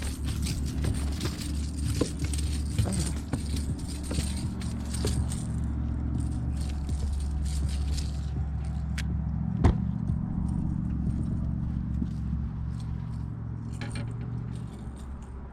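Fishing tackle being handled: scattered light clicks and rattles over a steady low hum, with one sharper click about two-thirds of the way through.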